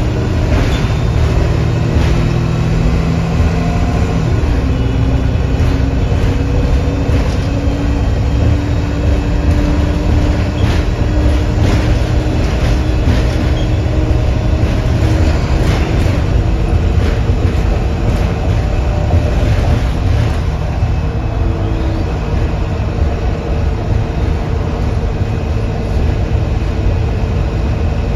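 Interior of a 2008 Nova Bus LFS city bus under way: a loud, steady low drone from the engine and drivetrain mixed with road noise. Faint whines drift in pitch as the speed changes, and short knocks and rattles come from the body now and then.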